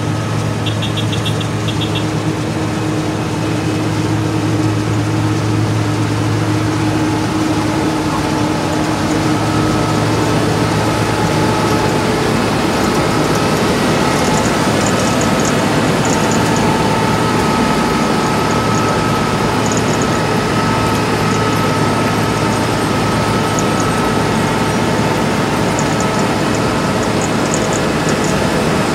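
Asphalt cold milling machine working: a steady, loud diesel engine hum mixed with the grinding rumble of the cutting drum chewing up pavement. A brief burst of high beeping comes about a second in.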